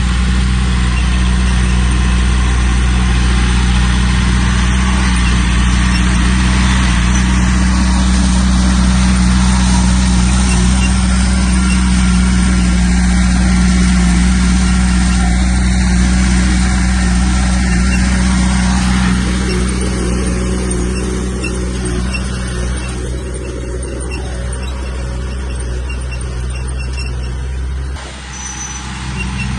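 Heavy diesel earthmoving machinery running steadily with a deep engine drone. The sound is louder for the first two-thirds, then eases off, with a brief dip near the end.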